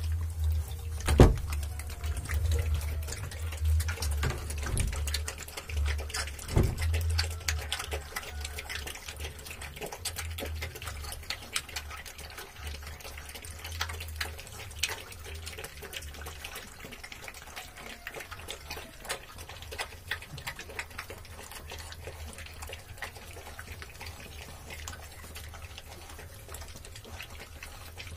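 Several Rottweiler puppies lapping curd from a metal pan: a dense, fast run of wet lapping and licking clicks, with a couple of sharper knocks about a second in and again near seven seconds, and a low rumble underneath.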